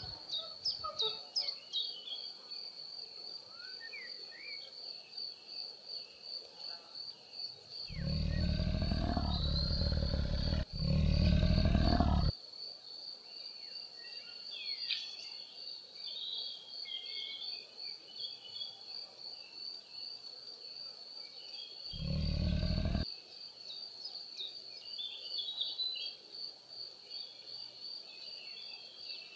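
Wild ambience with a steady high trill and scattered bird chirps, broken by loud, deep roars from a large animal: two long ones back to back about eight seconds in, and a shorter one about twenty-two seconds in.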